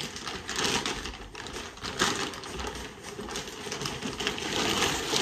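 Clear plastic wrapping crinkling and rustling in irregular crackles as it is pulled off a padded tripod carrying case.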